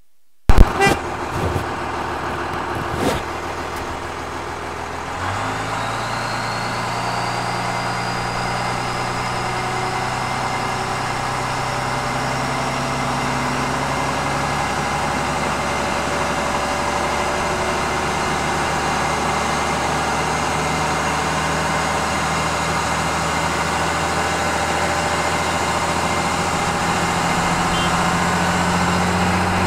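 1996 Dodge Ram's 5.9L Cummins turbo diesel running, with a few knocks near the start; about five seconds in the engine note steps up and a high turbo whistle rises and then holds steady. The whistle is plainly heard because the turbo's silencer ring has been removed.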